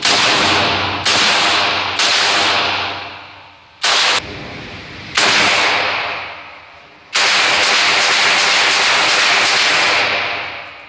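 FN M249 SAW light machine gun firing on full auto, in about six bursts: five short ones of a second or less, then one long burst of about three seconds near the end. Each burst echoes and dies away in the indoor range.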